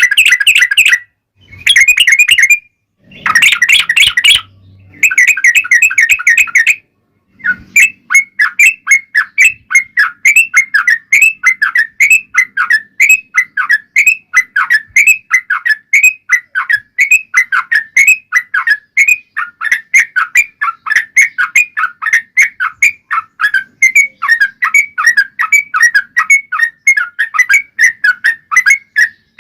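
Yellow-vented bulbul song: quick, bubbly chattering phrases, loud and repeated several notes a second. Over the first few seconds it comes in short bursts that cut off abruptly, and from about seven seconds in it runs on without a break, the notes crowding and overlapping.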